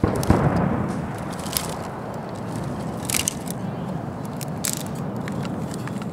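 Fire being lit in a small steel fire pit: a noise that starts suddenly and stays steady, with many crackles and pops through it as the fuel catches.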